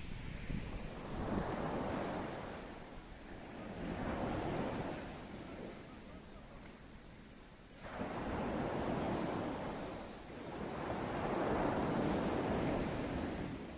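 Sea waves washing in against the shore in slow surges every few seconds, one coming in sharply about eight seconds in. A thin, steady high tone runs underneath from about two seconds in.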